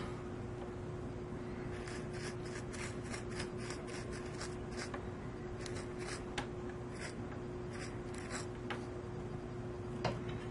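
Steady low electrical hum with a run of light, irregular clicks and scratching sounds in the middle.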